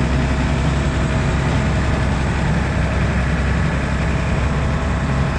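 Farm tractor's diesel engine running steadily, powering a feed mixer as it turns the load of silage and grain.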